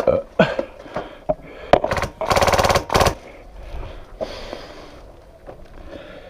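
Airsoft gun in an exchange of fire: a few single cracking shots, then a rapid full-auto burst lasting about a second, the loudest thing heard.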